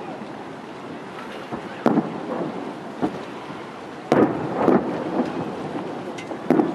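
Aerial firework shells bursting: a series of booms, the loudest cluster about four seconds in, each trailing off in a rumbling echo.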